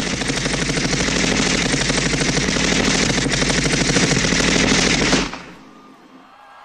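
A staged machine-gun sound effect played through the concert sound system: one long burst of rapid, evenly spaced shots that cuts off suddenly about five seconds in.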